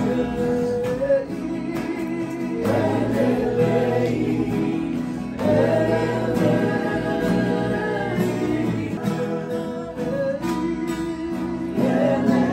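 A group of voices singing a hymn together, accompanied by an acoustic guitar, in long held phrases with new lines starting about three, five and a half and twelve seconds in.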